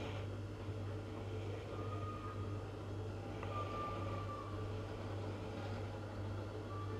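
Steady low hum under faint background noise, with a faint thin high tone about two seconds in and again near the end.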